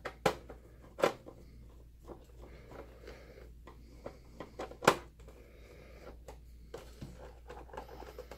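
Screwdriver backing a screw out of the Mitsubishi EX240 projector's plastic top casing: a few sharp clicks and taps of the tool and screw against plastic, the loudest just before five seconds in, with smaller ticks between.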